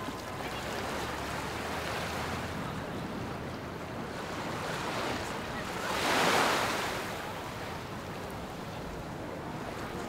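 Ocean waves washing onto a sandy beach, with one wave breaking louder about six seconds in.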